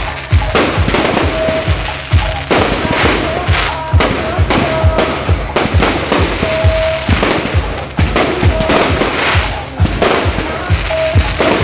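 Fireworks bursting and crackling, over loud music with a steady bass beat and a repeating held note.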